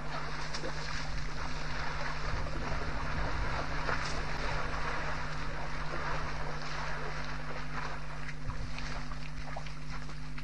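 Steady wind noise on the microphone over a constant low electrical hum, with faint sloshing from African elephants wading through shallow water.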